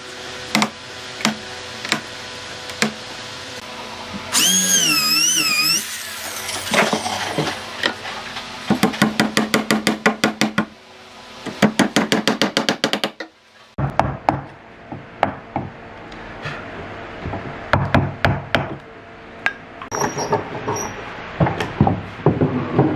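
Workshop sounds of a solid-wood door being assembled: scattered knocks and taps on the timber, a warbling whine about four seconds in, and two runs of fast, even clicks around nine and twelve seconds in.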